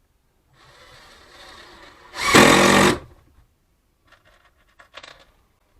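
Power drill/driver driving a short screw: a quieter run-up, then a loud burst of under a second about two seconds in as the screw goes home. A few faint clicks near the end.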